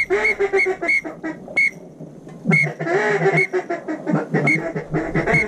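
Mallard-style duck quacking: one run of quacks near the start and another about two and a half seconds in, over short high peeps repeating irregularly throughout.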